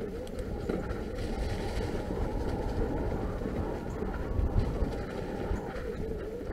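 Norco Fluid FS3 full-suspension mountain bike rolling along a leaf-covered dirt singletrack: a steady rush of tyre noise over dry leaves and dirt with low rumbling jolts from the trail, and one stronger jolt about four and a half seconds in.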